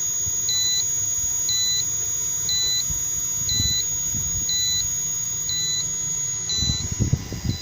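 1 kVA home inverter's buzzer beeping steadily, short high beeps about once a second.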